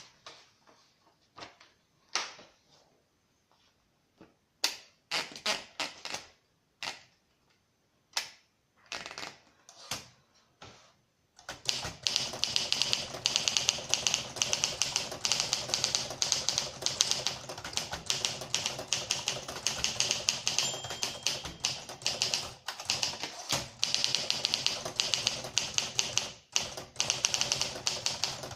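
Olympia SM4 manual portable typewriter typing: a few scattered key strikes at first, then from about eleven seconds in fast, continuous typing with many clacks a second.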